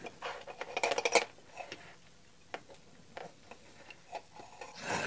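Light clicks and taps of small parts handled on a steel workbench: a cluster of sharp clicks in the first second as a small screw is set down, then sparse, faint clicks as the sander's motor stator and its wires are handled.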